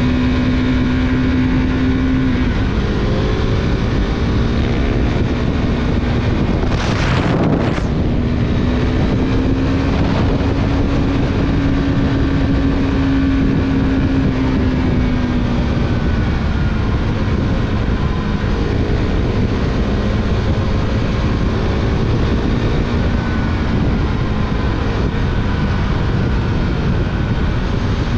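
Motorcycle engine running at road speed under heavy wind noise on the microphone. The engine note drops off about two seconds in, pulls up again and then slowly falls away, with a short double rush of noise about seven seconds in.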